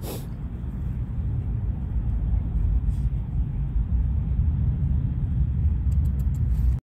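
A steady low outdoor rumble that grows a little louder over the first couple of seconds, with a brief click at the start.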